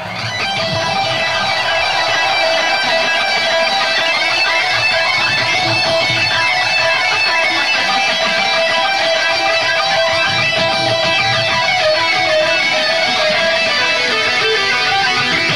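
Heavy metal band playing live, led by two electric guitars playing a steady, fast riff with a low end underneath.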